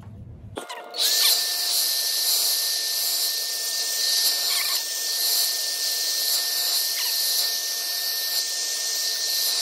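Conair handheld hair dryer switched on about a second in, then blowing steadily: an airy rush with a high whine, drying wig glue along the hairline.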